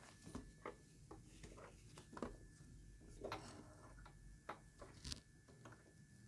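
Faint handling noises: light clicks and soft rustles of fingers working at the needle and presser foot of an electric sewing machine, which is not running. A faint steady high tone lies under them.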